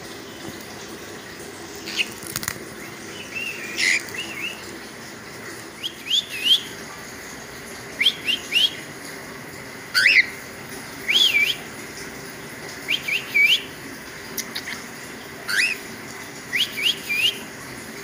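Cockatiel calling in short whistled chirps that sweep up in pitch, in quick clusters of two or three every second or two, over a faint steady hum.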